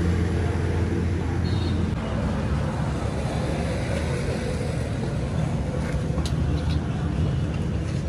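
An engine running steadily at a low, even drone, with a couple of faint light clicks about six seconds in.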